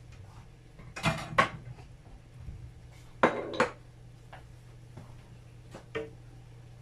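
Cookware clattering: two sharp double clinks about two seconds apart, then a fainter click near the end, over a steady low hum.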